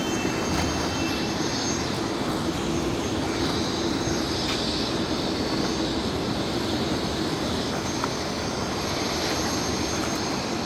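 A steady engine drone mixed with open-air noise, holding at an even level with no distinct events.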